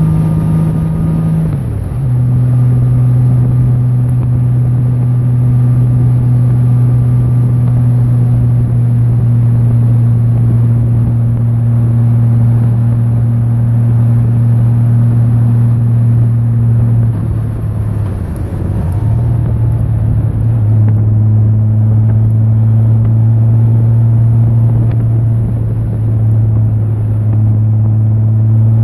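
Touring motorcycle engine running steadily under way, with wind and road noise. Its pitch drops about two seconds in, and again after it briefly eases off and wavers around two-thirds of the way through.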